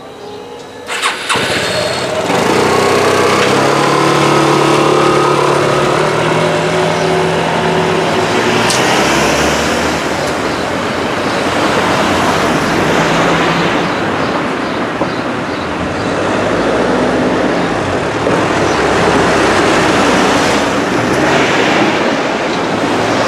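Road traffic moving off over a level crossing as the barriers lift: a motor scooter's engine revs up as it pulls away about a second in, then cars drive past one after another over the tracks.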